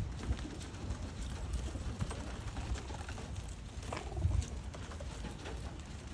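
Domestic pigeons cooing over a low rumble, with scattered small clicks and a low thump about four seconds in.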